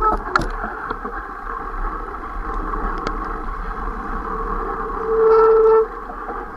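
Mountain bike descending a rough dirt trail: steady wind and trail rattle on the bike-mounted camera, with a few sharp knocks. About five seconds in a loud, steady squeal lasts just under a second.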